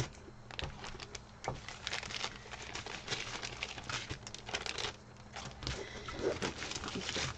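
Thin clear plastic bags crinkling in irregular rustles and crackles as a stack of small zip-top bags of diamond-painting drills is handled and pulled from its plastic outer bag.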